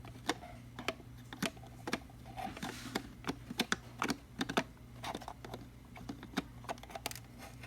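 Irregular small clicks and taps of a burr coffee grinder's parts being handled and adjusted, a few to several a second.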